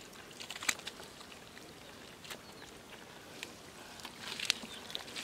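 Water splashing and sloshing in scattered short bursts, with a small cluster of splashes near the end.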